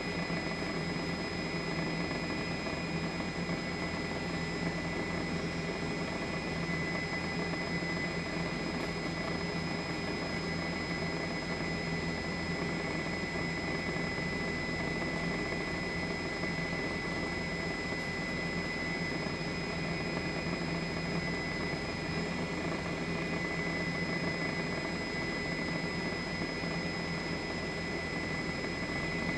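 Steady engine and rotor drone of the aircraft carrying the camera, heard from on board, most likely a news helicopter: a constant low hum with a steady high whine over a noisy hiss.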